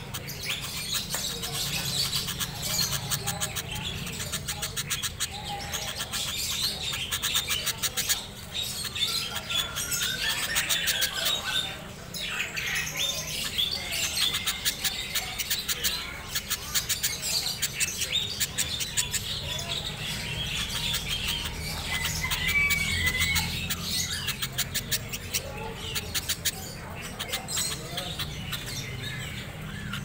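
Caged sooty-headed bulbul calling, giving a run of short chirps and squawky notes throughout.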